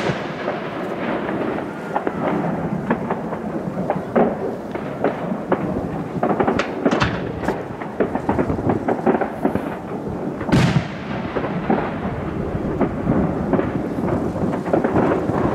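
Aerial firework shells bursting: a loud bang right at the start and another about ten seconds in, with many smaller pops and crackles in between over a continuous rumble.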